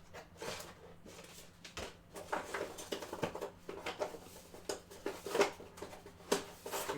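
Trading cards and their packaging being handled on a table: an irregular run of soft rustles, taps and clicks.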